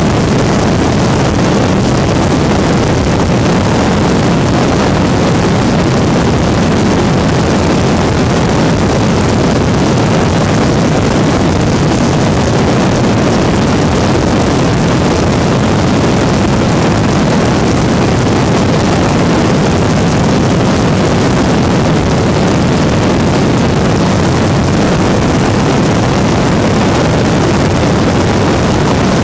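Weedhopper ultralight's two-stroke engine running steadily in flight, mixed with heavy wind rush on the microphone.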